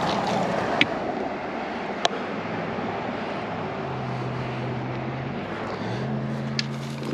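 Road traffic: tyre noise of passing cars, with a steady engine hum from about four seconds in that steps up in pitch about six seconds in. A few sharp clicks stand out over it.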